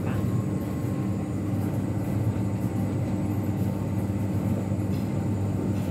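Steady low mechanical hum at an even level, with no breaks or changes.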